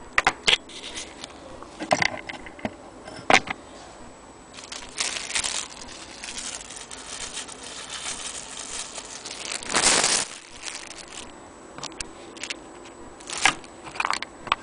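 Hands handling loose metal parts and tools of an antique sewing machine on a wooden base: irregular clicks and knocks, with a long stretch of plastic rustling and crinkling in the middle, loudest about ten seconds in.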